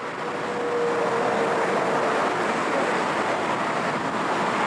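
Jet airliner engines running as the aircraft taxis past, a steady roar with a faint whine that rises slightly and dies away about two seconds in.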